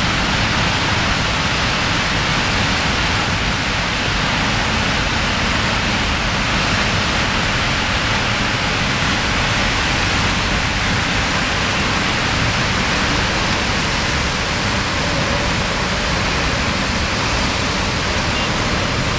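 Steady, even rush of heavy rainfall.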